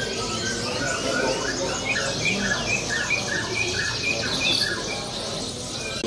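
A caged songbird singing a long run of short curved whistled notes, about two a second, with other birds chirping faintly behind.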